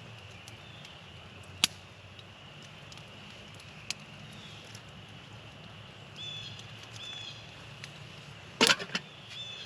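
A few sharp knocks from a metal mess kit pan being handled and cleaned: single ones about two and four seconds in, and a loud cluster near the end. A bird chirps several times in the background.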